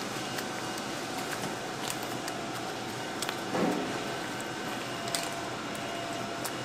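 Steady hum of factory machinery and ventilation, with a few light clicks and a brief soft handling sound as gloved hands rub seasoning paste into napa cabbage.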